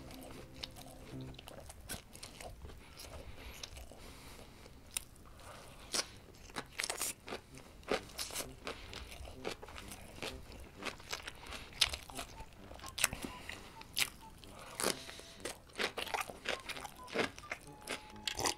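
Close-miked mouth sounds of eating: soft chewing, then from about six seconds in a run of crisp, irregular crunches from biting and chewing homemade pickled vegetables.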